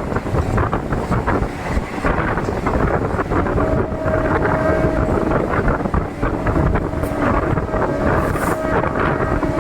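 Wind buffeting the microphone over the steady running noise of a DEMU train on the move. A thin, steady high tone joins about a third of the way in and holds.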